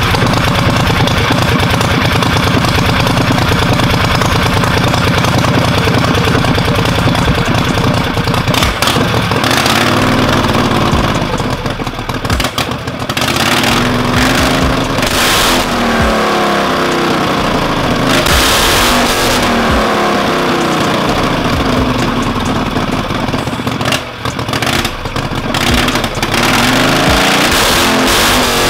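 Performance-built Predator 670cc V-twin engine running loud through open straight headers on a bench, with its throttle worked by hand at the cable. It runs steadily at first, then revs up and down repeatedly through the middle, and settles back to a steady run.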